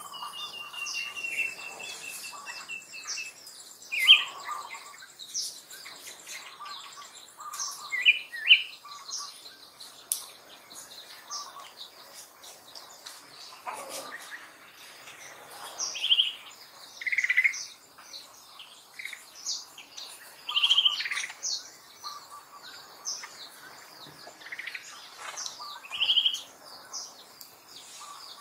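Birds chirping and calling, with a louder short high call every few seconds. A high, steady insect buzz runs through the first few seconds.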